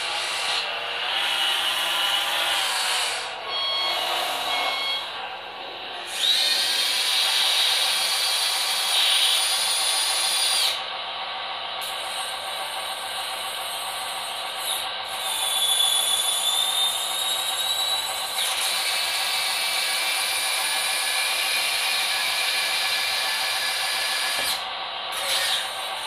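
Beier USM-RC-2 sound module in an RC Bruder Liebherr wheel loader playing an engine sound through the model's small speaker. It revs up about six seconds in and settles back about eleven seconds in, mixed with the whine of the model's electric motors as it drives and lifts and lowers the bucket.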